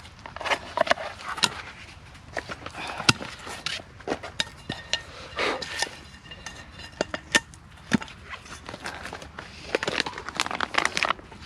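Camp cookware being handled: irregular clinks, taps and short scrapes of a utensil and metal pan.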